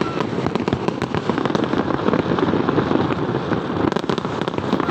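Fireworks display going off in a dense, continuous crackle of many rapid pops and bangs, with faint whistles now and then.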